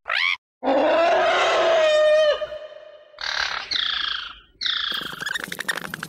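Imagined pterosaur calls made as sound effects: a short sharp cry, then a long high call held on one pitch that bends down at its end, then several shorter calls, the last with a rattling edge.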